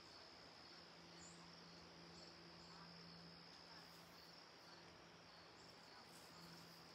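Near silence: faint steady background hiss with a thin, constant high-pitched tone and a faint low hum.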